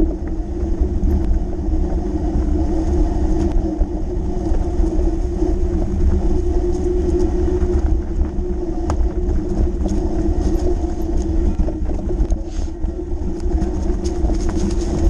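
Fat bike rolling along a grassy dirt track: a steady hum and rumble from the wide tyres, with wind buffeting the camera microphone and scattered clicks and rattles over bumps.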